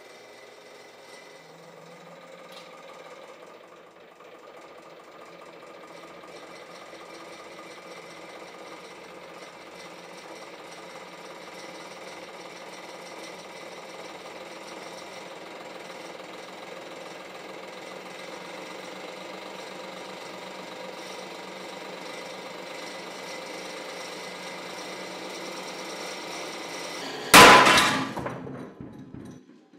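Hydraulic press running with a steady hum that slowly grows louder as it pulls a BMW M3 steel connecting rod in tension. About 27 seconds in, a loud sharp bang as the rod snaps at close to 14 tonnes, with ringing that dies away over a couple of seconds.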